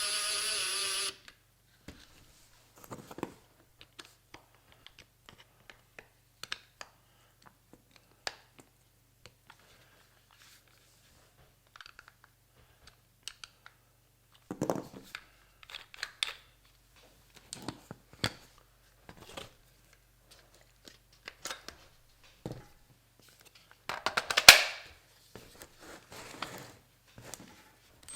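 A power drill whirs briefly at the very start, then a long stretch of scattered small clicks, taps and rustles of hands handling metal and plastic tool parts and screws, with a sharper click about 24 seconds in.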